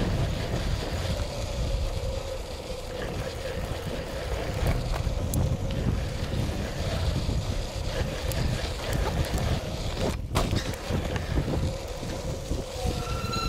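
Wind buffeting the camera microphone over the rough, uneven rumble of mountain bike tyres rolling on a dirt and gravel trail. A short high-pitched tone sounds near the end.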